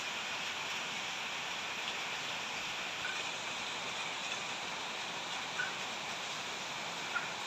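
Steady hiss of rain falling, with a few faint short squeaks over it.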